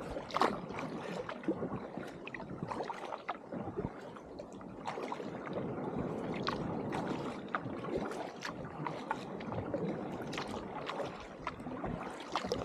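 A kayak being paddled: the double-bladed paddle dipping and splashing in the water in irregular strokes, with water washing along the hull.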